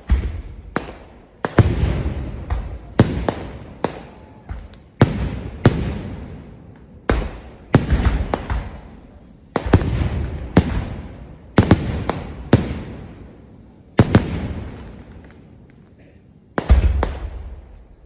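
Fireworks display going off: a rapid, irregular string of loud explosions, about one or two a second, each trailing into a rumbling echo. A short lull comes near the end before the bangs start again.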